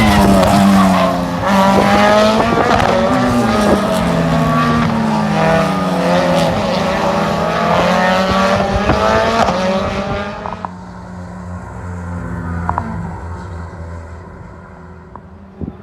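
Single-seater racing car engines at full throttle on track, revving up and dropping in pitch through gear changes. The sound falls away sharply about ten seconds in and carries on much quieter.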